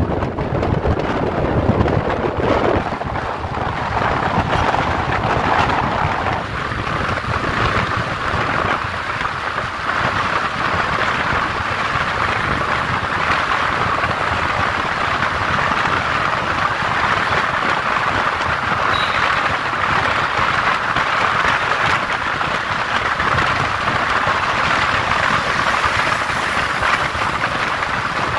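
Steady rush of wind and road noise from a vehicle moving at highway speed. About six seconds in the rush turns brighter and fuller as the vehicle runs into a road tunnel.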